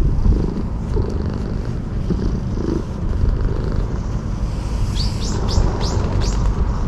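A cat purring right at the microphone as it is stroked, with a low rumble throughout. About five seconds in, a bird starts a run of short, sharp chirps that sweep downward, about three a second.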